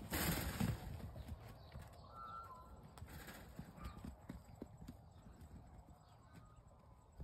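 Hooves of a small mob of sheep scuffling and trotting on grass and dirt as they move off, loudest in the first second, then quieter scattered footfalls and rustling.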